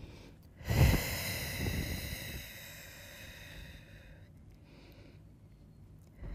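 A long, audible breath out close to the microphone, starting sharply about a second in and hissing away over roughly three seconds, followed by a shorter, softer breath near the five-second mark.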